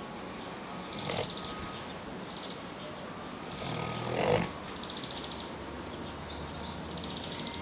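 A sleeping pet snoring: a short snore about a second in, then a longer one that swells louder and ends at about four and a half seconds.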